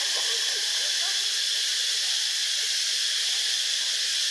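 Steady, even high hiss with no rhythm and no change in level. Faint short calls or voices sit low beneath it.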